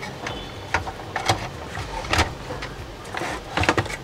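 Irregular clicks and knocks of small plastic and metal parts being handled and pressed into place inside a Philips 2-in-1 radio cassette recorder, as its tuning gang is fitted.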